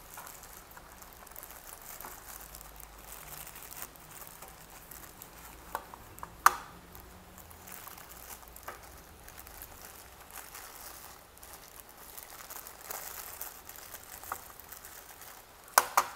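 Thin clear plastic bag wrapped round a wired mouse and its cable crinkling softly as it is handled. A sharp tap comes a little before the middle, and two or three more come near the end.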